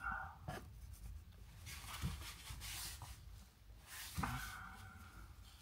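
Ballpoint-style pen scratching faintly across postcard card, with a few soft knocks of the pen or hand on the table.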